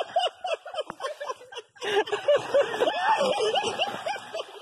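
A person laughing hard in quick repeated bursts, several a second, breaking off briefly about a second and a half in.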